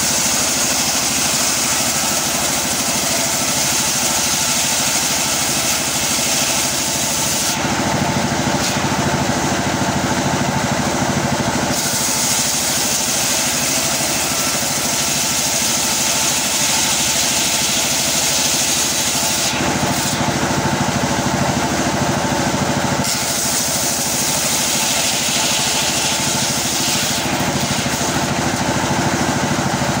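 Engine-driven circular saw sawmill running steadily, its blade ripping gempol wood into boards. The sound changes character three times for a few seconds each, about 8, 20 and 27 seconds in.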